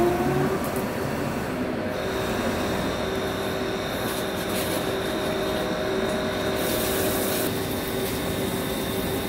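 Vertical CNC lathe running with a cast iron turbo compressor housing spinning on its chuck, and the boring tool cutting in the bore under a coolant flood. A steady machine hum with a thin high whine that comes in about two seconds in and holds.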